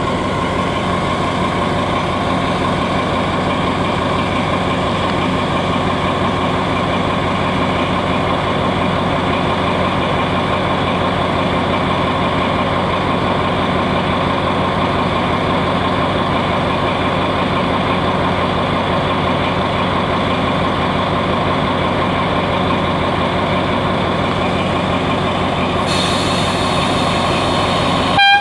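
Alsthom AHK diesel locomotive idling steadily at the head of a tank-wagon train, its engine holding an even note. A hiss of air joins near the end.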